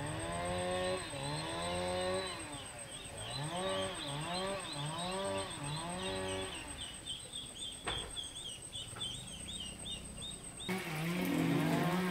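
A farm animal calling over and over in short calls that rise and fall in pitch, each under a second long, over a steady high insect drone. A single sharp knock comes about eight seconds in, and the sound changes abruptly near the end.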